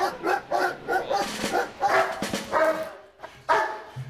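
German shepherd police dog barking in quick, repeated barks, about three or four a second, with a short break shortly before the end and then another bark.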